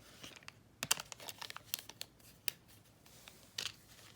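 Plastic packaging crinkling, with a quick run of sharp crackles and clicks about a second in and one more near the end, as it is handled.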